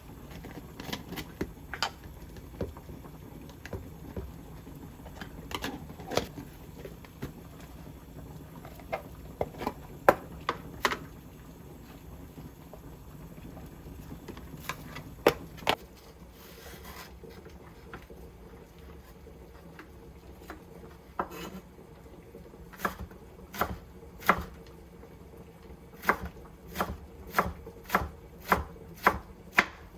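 Kitchen knife chopping vegetables on a cutting board: scattered single cuts, then a steady run of chops, roughly one or two a second, near the end.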